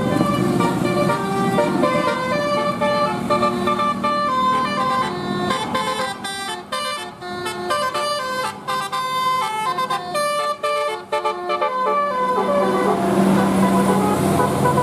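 Basuri "telolet" multi-tone bus horn playing a tune of quick, stepping notes, with sharp clicks between notes in the middle and a lower held tone under it at the start and near the end.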